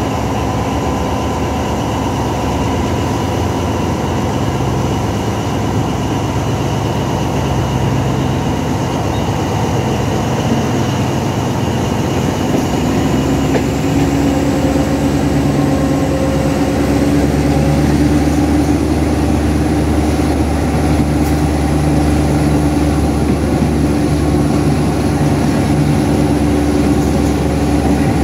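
Alsthom diesel locomotive's engine working under load as the train moves, with track noise under it. About halfway through, the engine note steps up and grows louder and a high whine climbs in pitch as it accelerates hard.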